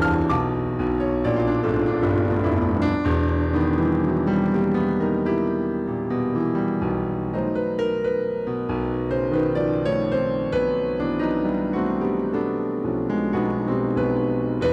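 Solo digital piano playing a continuous, dense run of notes and chords over low bass notes.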